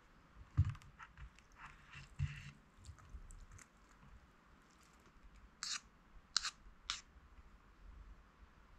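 Chopsticks and a plastic ladle handling noodles in a cup ramen bowl: soft knocks and wet noodle sounds, then three short sharp clicks a little over halfway through.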